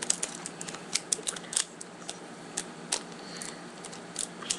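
Irregular light clicks and taps close to the microphone, several a second, over a faint steady hum.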